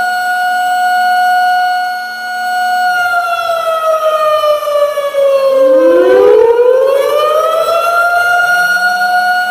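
Tornado warning siren sounding a steady wail. About three seconds in it begins to wind down in pitch, and as it falls a fresh wind-up rises back to the full steady tone.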